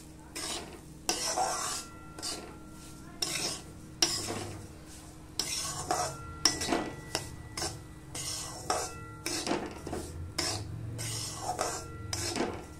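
A spatula scraping and stirring semolina as it roasts in ghee in a steel kadhai, in repeated strokes at an uneven pace of about one or two a second.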